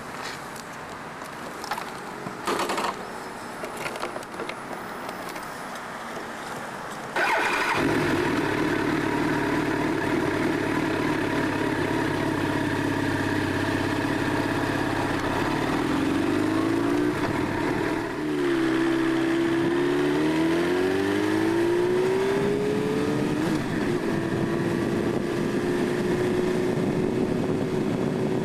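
A few knocks and clicks, then a motorcycle engine starts about seven seconds in and runs at idle. From the middle it revs up and down several times, then its pitch climbs steadily near the end as it pulls away.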